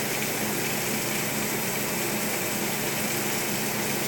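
Steak sizzling in butter in a nonstick skillet on an electric stove, a steady even hiss over a low steady hum.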